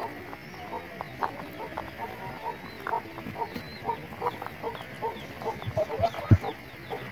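Chickens clucking in short, repeated calls, with faint high peeps, and a single low thump about six seconds in.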